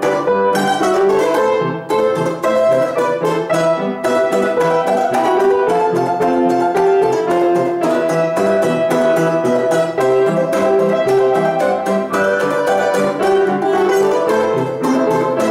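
Balalaika played with fast, continuous strumming, a melody carried on rapid repeated strokes.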